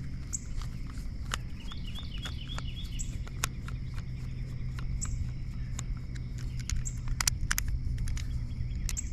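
Scattered small clicks and taps of a screwdriver and plastic plug parts being handled as the screws of an extension-cord receptacle end are loosened, over a steady low hum. A short run of bird chirps comes about two seconds in.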